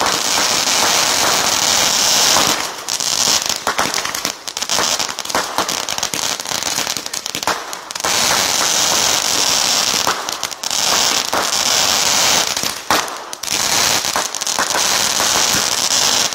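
Consumer fireworks going off in a dense, continuous barrage: rapid crackling pops and bangs over a steady hiss, from ground fountains and small aerial shells bursting into crackling stars. It dies away abruptly at the very end.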